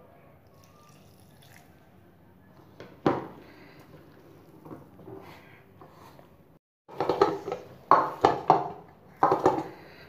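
Hands mixing and kneading thepla dough of wheat flour and chopped fenugreek leaves in a steel plate: soft squishing of wet dough with a single knock about three seconds in, then, from about seven seconds in, a run of louder sharp clanks as the dough is pressed and knocked against the metal plate.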